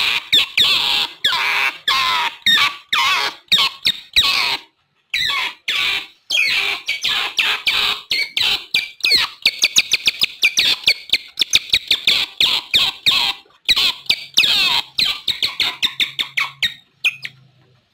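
Otters chirping and squeaking in a rapid run of short, high-pitched calls, several a second, with a brief break about five seconds in.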